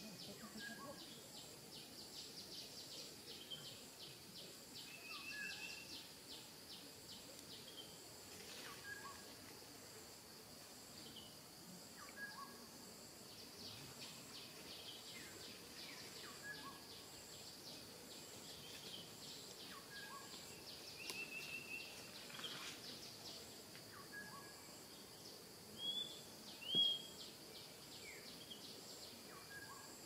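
Faint woodland ambience: a steady, fast-pulsing insect buzz, with short bird chirps and trills scattered throughout. Two brief louder sounds come near the end.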